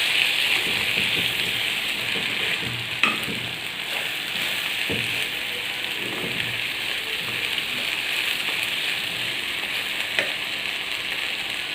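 Rice and browned vermicelli sizzling steadily in hot ghee and oil in a pot as they are stirred to coat the grains in the fat, with a sharp click about three seconds in and a fainter one near the end.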